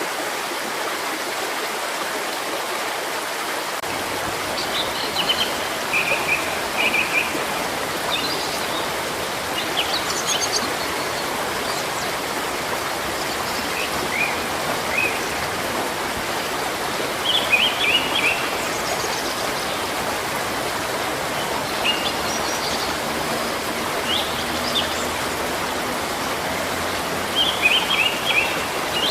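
Running water from a stream or small waterfall makes a steady rush, while small birds chirp in short bursts of a few quick high notes every few seconds.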